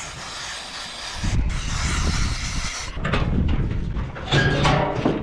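Aerosol marking-paint can spraying red paint onto a cow's hide in two hissing bursts, each about a second and a half long. About three seconds in the hissing stops and other, louder noises follow.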